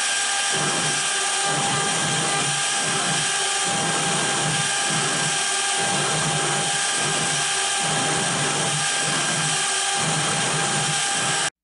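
CNC router spindle running with a steady high-pitched whine while a 90-degree V-bit v-carves into a wooden board, with a lower sound swelling and fading about once a second as the cut goes on. It stops abruptly near the end.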